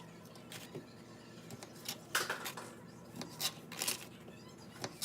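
Knife chopping broccoli on a cutting board: a string of irregular short knocks and taps, a few louder ones past the middle.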